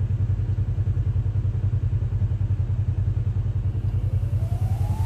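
Vehicle engine idling with a steady, fast-pulsing low rumble. Near the end a rising electronic sweep begins as music comes in.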